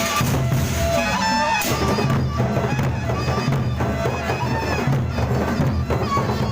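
Gendang beleq, the Sasak big-drum ensemble, playing: continuous drumming and cymbal strokes with a melody line above.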